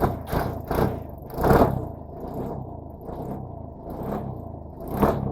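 Suzuki Burgman scooter engine running, held on the throttle, with two louder rev-ups, about a second and a half in and near the end. The engine will not hold idle on its own and stalls when the throttle is let go, a fault the mechanic puts down to the idle speed control.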